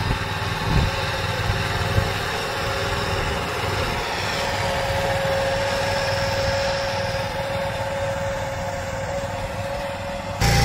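Small engine of a walk-behind power weeder running steadily under load while it drags a levelling blade through tilled soil, with a couple of knocks in the first two seconds. The engine is suddenly louder for the last half second.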